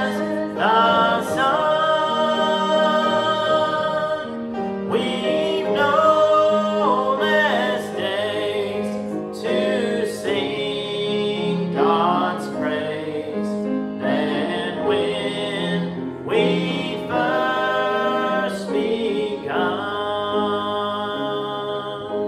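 A hymn sung with instrumental accompaniment, a man's voice leading, ending on a long held note near the end.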